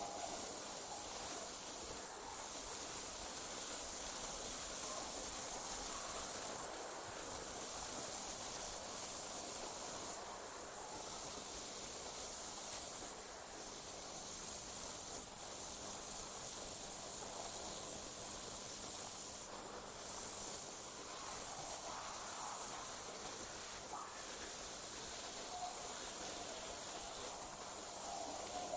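Crickets trilling in a continuous high-pitched chorus that drops out briefly every few seconds before resuming.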